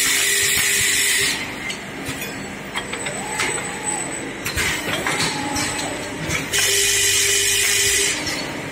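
Semi-automatic double-head cutting-disc making machine running: two long hisses of compressed air, one at the start and one about seven seconds later, with mechanical clatter and knocks from the rotary mould table between them.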